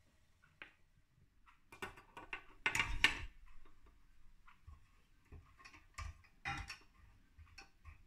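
Light metallic clicks and knocks from handling a toy steam engine with pliers and a small steel cup, with a louder clatter about three seconds in and scattered ticks after it.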